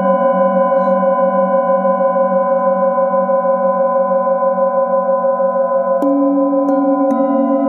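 Metal singing bowls ringing together in long, layered tones, the lowest tone wavering in a slow pulse. About six seconds in, three light strokes on the bowls add fresh tones to the ring.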